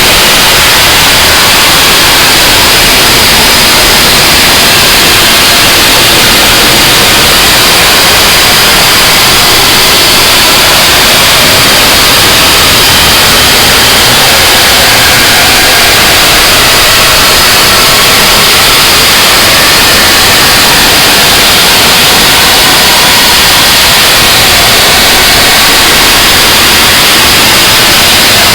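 Harsh noise wall music: a loud, unchanging wall of hissing, distorted static with no rhythm, pitch or break.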